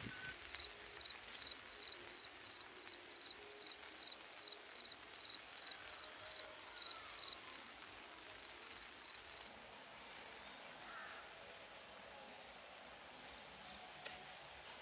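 A small creature's chirping call: short high chirps repeated evenly about three times a second for some seven seconds, then fading out. Behind it is a faint steady high-pitched drone and quiet outdoor background hiss.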